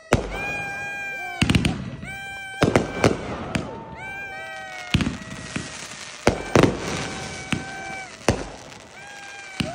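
Aerial firework shells bursting overhead in a quick series of sharp bangs, about a dozen of them. Between the bangs come several held high tones about a second long, each dropping in pitch as it ends.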